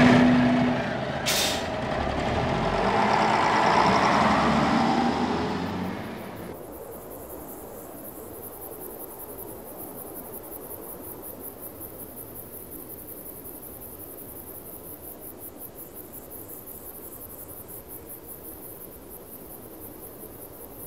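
A loud hissing whoosh swells and fades out about six seconds in, with one sharp click about a second in. It gives way to a quiet, steady night ambience with a high, evenly pulsing insect chirr.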